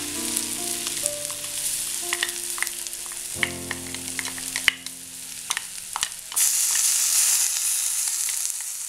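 Hot coconut oil sizzling in an aluminium kadai as ground coconut paste is scraped into it from a steel mixer jar. A run of sharp clicks and taps comes in the middle as the spoon scrapes against the jar. The sizzle swells again about two-thirds of the way through.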